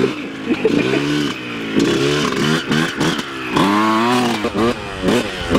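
Dirt bike engine revving up and down over and over as it is ridden, its pitch climbing with each twist of the throttle and dropping back between. The biggest climb comes about two-thirds of the way through, as the bike is pulled up into a wheelie.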